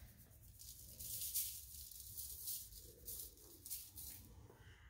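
Lemon pepper shaker being shaken over a trout on aluminum foil: a series of faint, quick rattling shakes, a few a second, with seasoning pattering down.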